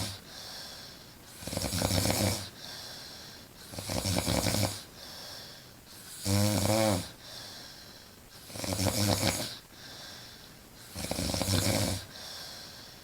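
A woman snoring loudly in slow, regular breaths, five snores about two and a half seconds apart. The one in the middle has a clear wavering pitch.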